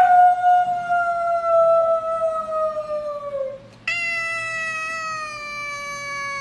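A domestic cat giving two long, drawn-out meows, each held for seconds with its pitch slowly sinking; the second begins about four seconds in.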